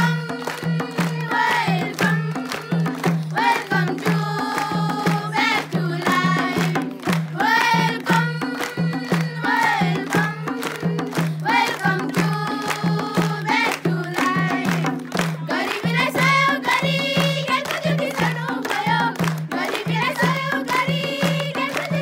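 Girls singing a Nepali folk song together, accompanied by a steady beat on madal barrel hand drums and hand clapping.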